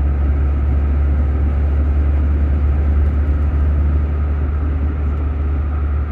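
A 1988 Volvo 244 cruising on an open road, heard from inside the car: a loud, steady low drone of engine and road noise that does not rise or fall.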